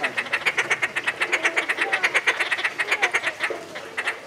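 Inca terns calling: a fast, even run of short clucking notes, about eight a second, that stops a little before the end.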